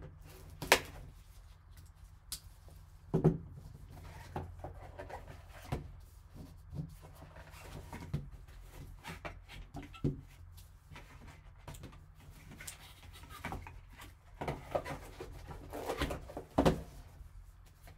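A small cardboard card box being cut open with a folding knife, its lid lifted off and handled over a foam insert: scattered taps, knocks and rustles of cardboard, with a few louder knocks near the end.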